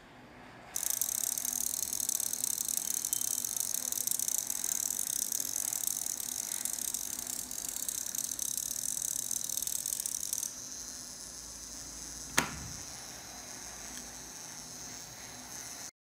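Relay inverter running: the relay chattering rapidly as it switches the transformer, giving a harsh high-pitched buzz that starts about a second in and stops abruptly about ten seconds in. A single sharp click follows a couple of seconds later.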